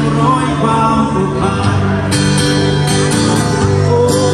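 Live acoustic guitar played by a street busker.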